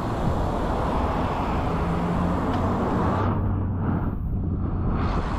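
Steady rush of wind and road noise during a road-bicycle ride, with the low hum of motor traffic under it.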